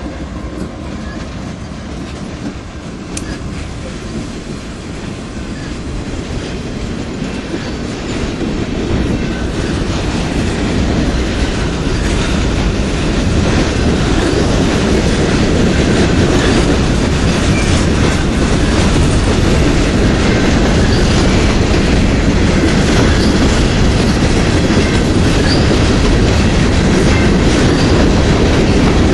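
Diesel-hauled freight train passing close by, its wheels clattering over the rail joints. The rumble and clatter grow louder over the first dozen seconds, then hold steady as the freight cars roll past.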